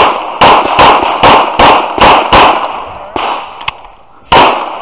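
Infinity pistol firing rapidly during a USPSA stage: seven shots about 0.4 s apart, a brief pause, then one more shot near the end, each with a sharp echoing report.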